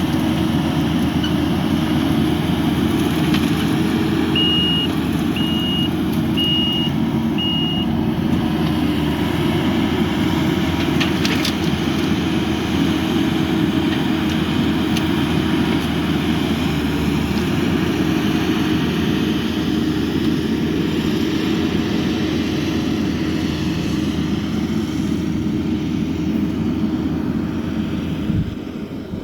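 An engine running steadily and loudly, with four short high beeps about a second apart a few seconds in.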